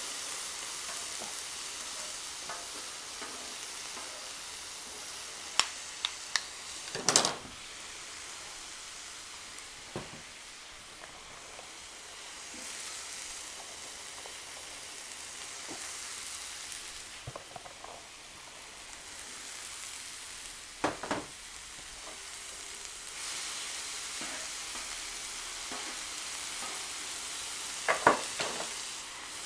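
Beef strips and vegetables sizzling in oil on a hot cast iron griddle, a steady frying hiss. A few sharp knocks and scrapes of wooden spatulas stirring the food stand out, the loudest about a quarter of the way in, about two-thirds of the way in, and near the end.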